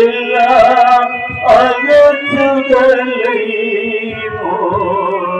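A voice singing with instrumental accompaniment, wavering on long held notes near the end.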